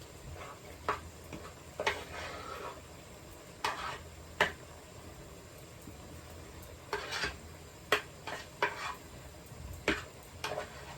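Irregular knocks and short scrapes of a utensil against a wooden bowl as soft pounded yam is worked and scooped.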